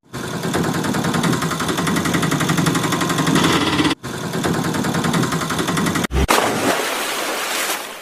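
A fast, even mechanical rattle over a steady low hum, like a small engine running. It breaks off briefly about four seconds in, stops about six seconds in, and gives way to a plain rushing noise.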